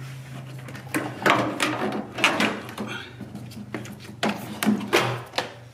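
Plastic windshield cowl panel of a BMW F30 being pulled loose and lifted out: its retaining clips snap free and the hard plastic panel knocks and scrapes against the body, in a string of irregular sharp clicks and clunks.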